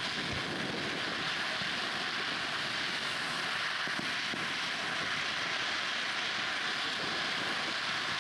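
Aerial fireworks giving a steady, dense crackling hiss from falling sparkling stars, with a few soft low thumps underneath.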